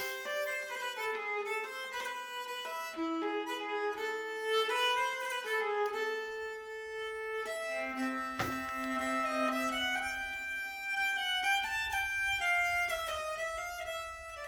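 Background music: a fiddle playing a melody of held and moving notes.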